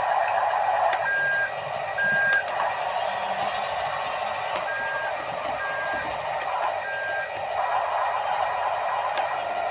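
Toy construction vehicle's reversing beeper sounding five short beeps, two about a second apart, then after a pause three more, over a steady whirring noise.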